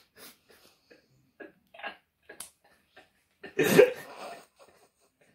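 Young men laughing in short breathy bursts, with a loud burst of laughter about three and a half seconds in.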